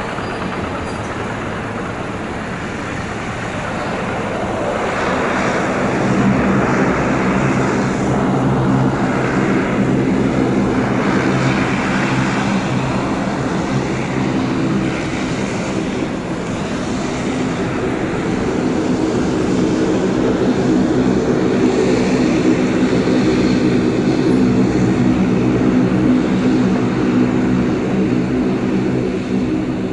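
De Havilland Dash 8-400 (Q400) turboprop taxiing, its twin propeller engines giving a steady droning hum with several held tones. It grows louder about five seconds in.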